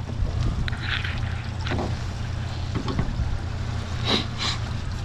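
Fishing boat's motor running with a steady low hum, with water sloshing against the hull and wind on the microphone.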